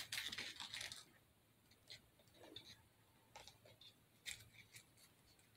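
Faint rustling and scratching of small craft decorations handled by hand. A rustly burst comes in the first second, followed by scattered light scrapes and clicks.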